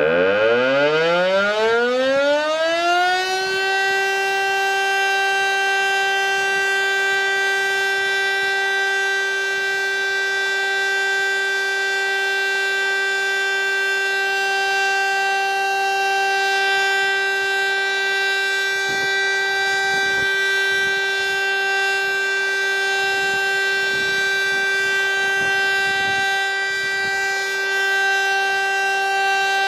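VEM DS977 mechanical civil-defence siren starting up: its wail rises in pitch over the first three seconds or so, then holds one steady, loud tone. It is sounding the monthly siren test signal.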